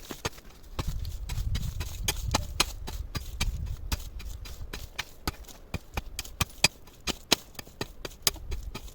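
A rapid, irregular run of sharp clicks and knocks, several a second, with a low rumble underneath in the first few seconds and again near the end.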